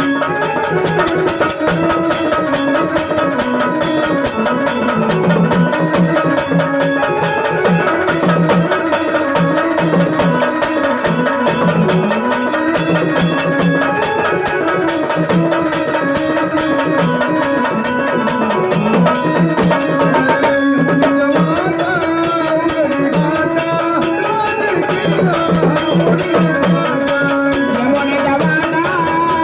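Marathi gondhal folk music: drums keep a dense, steady beat under a wavering melody line.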